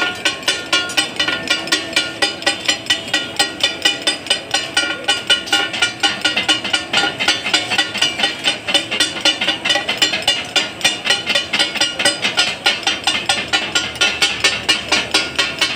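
Metal spatulas chopping and clattering on a large flat steel griddle (tawa) as katakat is cooked: a fast, steady rhythm of metallic clangs, about four to five a second, with a ringing tone under them. This clatter is what gives katakat (takatak) its name.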